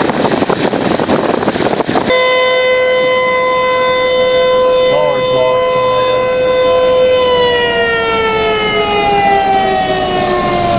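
Wind and road noise for about two seconds, then an outdoor tornado warning siren sounding one steady tone, which starts to fall slowly in pitch about seven seconds in.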